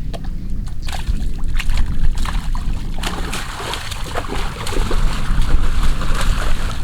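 Water splashing and sloshing in quick, irregular strokes, growing denser about halfway through, over a steady low rumble.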